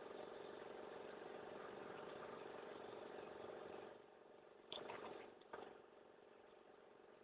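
A small motor humming steadily, stopping about four seconds in, followed by two short sudden sounds.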